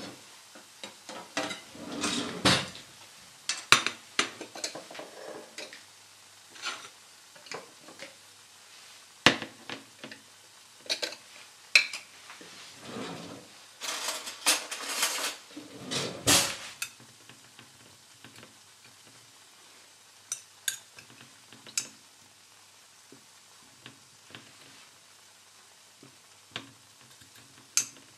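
Dishes being handled on a glass-ceramic hob: a ceramic plate and a glass jar of olives set down with frequent clinks and clatters through the first half, then only a few light taps as olives are placed on the plate.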